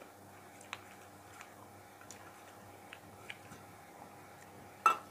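A few faint short clicks of eating from a steel plate by hand, then near the end one sharp metallic clink with a brief ring as a steel serving spoon knocks against the steel dishes.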